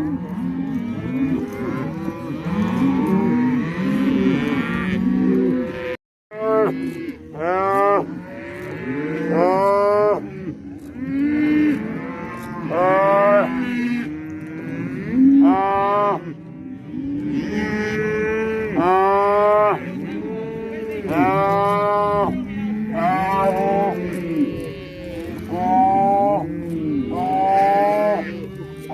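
Herd of cattle mooing, many calls overlapping one another. The sound drops out for a moment about six seconds in.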